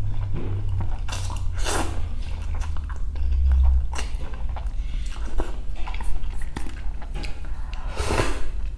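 Close-miked eating sounds of birria ramen. Noodles are slurped twice about a second in, then comes wet chewing with small mouth clicks, and there is a sip of broth from a spoon near the end.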